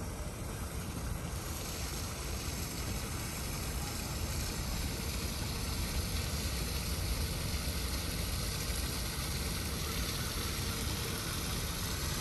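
Water running down a small stacked-rock waterfall fountain: a steady rushing splash that grows brighter and a little louder about two seconds in, over a low rumble.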